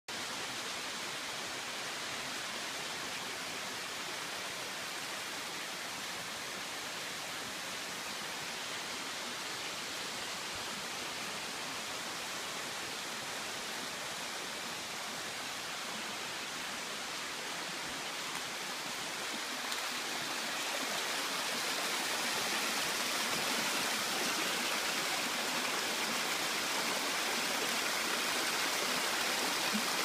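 Small mountain-creek waterfalls, water cascading over rock ledges with a steady rush. It grows louder about two-thirds of the way through.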